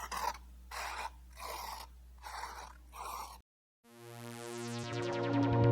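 Brush strokes on canvas: five short scraping strokes at an even pace, with a faint hum beneath. Shortly after three seconds in the sound cuts out and soft background music fades in, growing louder.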